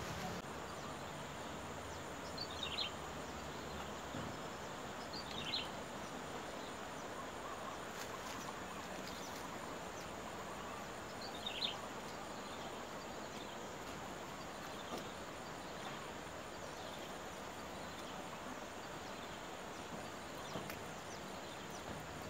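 Steady outdoor background hiss, with a bird giving a short, falling chirp a few times, several seconds apart.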